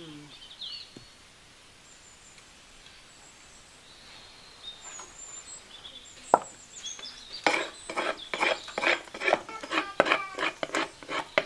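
Faint bird chirps at first. Then, about seven seconds in, a steady run of knocks and scrapes at a wooden mortar of pounded taro (achu), about three strokes a second, as yellow sauce is worked in from a metal bowl.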